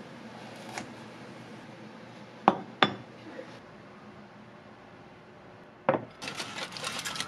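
Kitchenware being handled: two sharp clinks a third of a second apart, then a knock and a dense crackling near the end.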